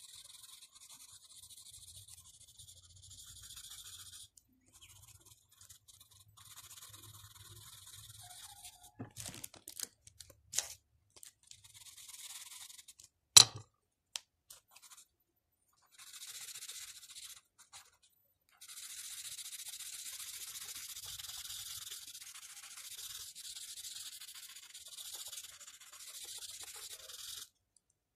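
Charcoal pencil shading on drawing paper: a dry, scratchy rubbing in long stretches with short pauses between them. A sharp click comes about 13 seconds in.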